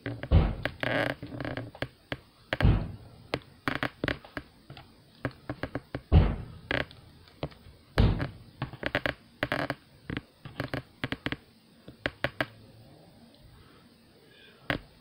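Plastic clicks, taps and knocks of a Transformers Legacy Blurr action figure being handled, its parts twisted and folded as it is transformed. There are a few louder thunks about half a second, three, six and eight seconds in.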